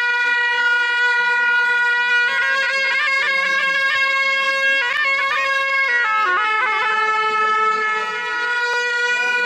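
A pair of gyaling, Tibetan Buddhist shawms, playing loudly. One holds a steady nasal note while the second comes in about two seconds in with an ornamented line of quick pitch turns. It then slides down to settle just below the first note.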